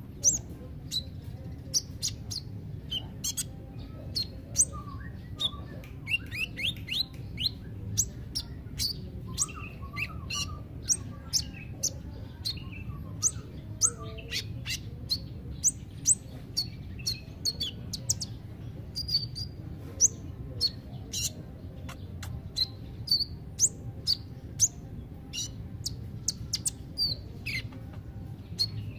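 Male sunbird (kolibri ninja) singing: a long, rapid run of short, high, sharp chirps and twitters, with a steady low hum underneath.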